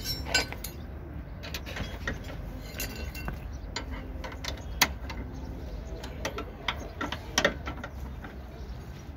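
Hand tools clinking and clicking against a car's front suspension parts while a control arm with new bushes is refitted. The clinks come irregularly, with a few sharper knocks about half a second in, near the middle and around seven seconds.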